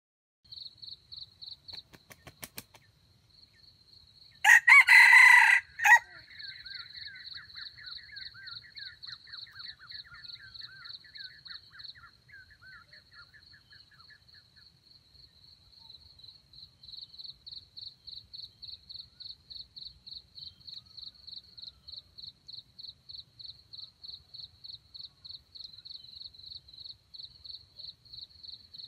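A red junglefowl rooster crows once, loud and short, about four and a half seconds in. Insects chirp in a fast, steady pulse throughout, and a fainter trilling call follows the crow for several seconds.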